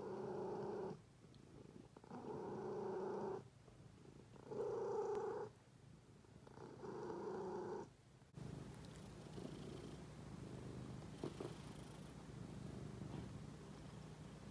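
Domestic cats purring. First a loud purr swells and fades with each breath, four pitched, humming surges about two seconds apart. After a cut about eight seconds in, a softer, steady purr continues from close to the seal-point cat.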